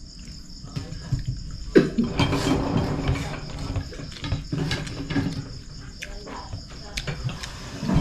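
Crickets chirping steadily, with scattered clicks and clinks of eating by hand from a plate and muffled talk in the background.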